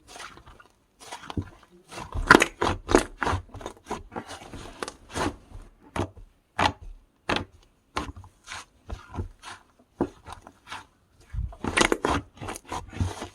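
Hands squishing and poking slime, making a run of irregular sticky clicks and pops.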